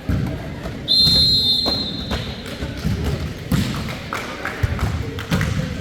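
Referee's whistle blown in one short, steady blast about a second in, among repeated thuds and knocks of play on an indoor volleyball court.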